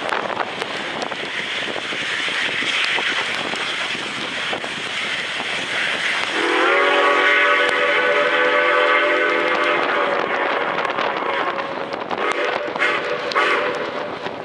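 Steam locomotive No. 489 working toward the listener with a steady rushing of exhaust and steam. About six seconds in its steam whistle sounds one long chord of several tones, held for about three and a half seconds, then trails off.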